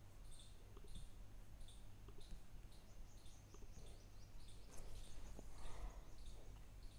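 Faint high chirps repeating about twice a second over a steady low electrical hum, with a short burst of noise about five seconds in.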